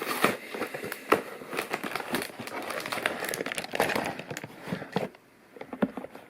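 Packaging being handled close by: crinkling and rustling with many scattered clicks and taps, dying away about five seconds in.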